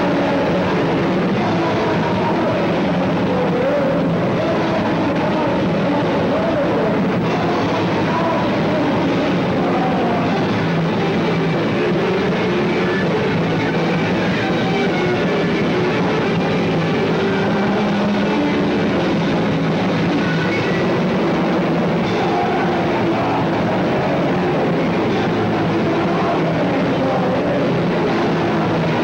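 Live punk band playing loud and without a break: guitar, bass and drums blurred into one dense wall of sound.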